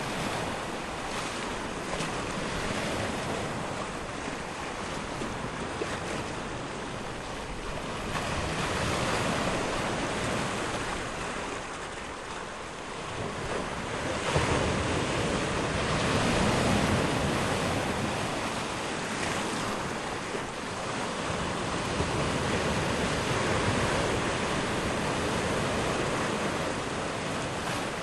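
Sea surf at low tide: waves washing in and drawing back, rising and falling in swells every several seconds, with one sharper surge about halfway through.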